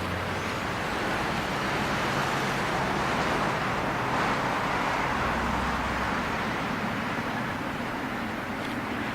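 Jet roar from a Boeing 777F's two GE90 turbofan engines, a steady rushing noise that swells slightly in the middle.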